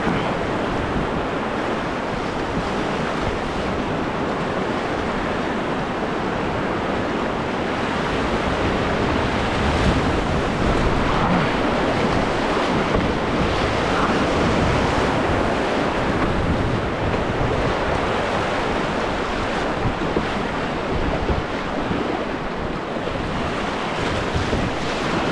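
Whitewater rapids rushing steadily, a continuous churning water noise heard from a canoe running the rapid.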